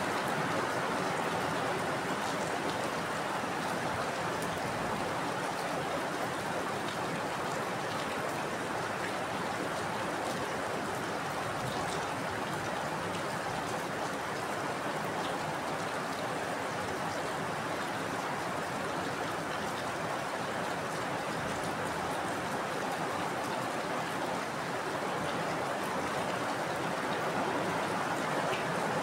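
Heavy rain falling steadily: an even rushing hiss with faint scattered drop ticks.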